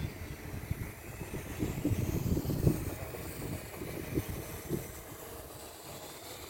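Wind buffeting the microphone in uneven gusts, a low rumble that rises and falls.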